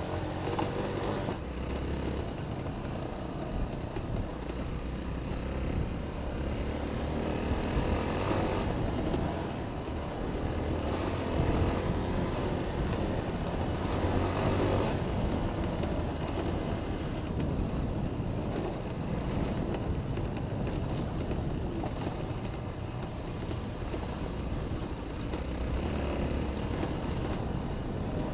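Honda XR 250 trail motorcycle's single-cylinder four-stroke engine running while ridden, its level rising and falling with the throttle.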